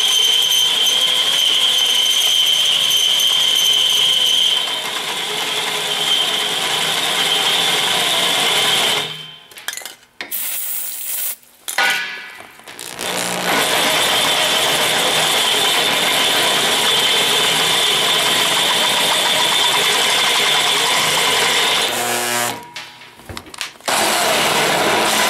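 Electric drill running, boring a twist bit down through a steel plate, with a steady motor whine and a high tone over the first few seconds. The motor stops about nine seconds in, runs briefly, starts again a little later, then stops once more and restarts near the end.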